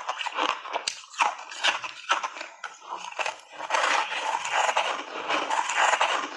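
Close-up crunching and chewing of purple refrozen ice chunks coated in matcha milk powder. Scattered crunches at first, then a fresh big bite a little over halfway in brings a dense run of crunching.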